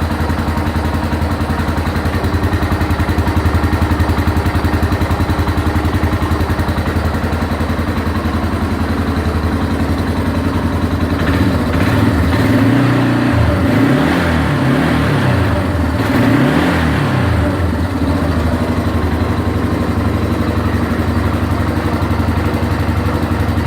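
Yamaha Moto-4 350 ATV's single-cylinder four-stroke engine idling steadily just after a top-end rebuild with new piston rings and valve seals. A little past the middle the revs rise and fall about three times in short throttle blips, then settle back to idle.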